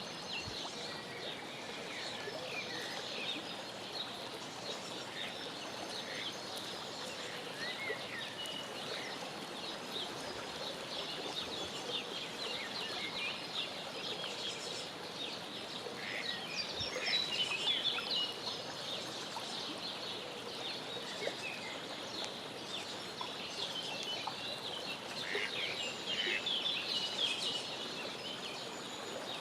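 Mallard ducklings peeping: many short, high calls overlapping, busier in spells midway and near the end, over a steady background hiss.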